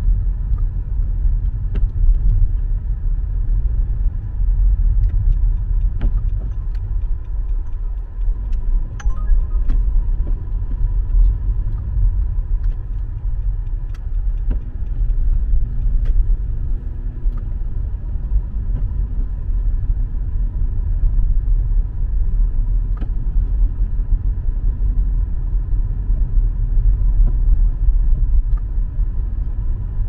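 Car driving, heard from inside the cabin: a steady low road and engine rumble, with a thin steady high tone and a few faint clicks.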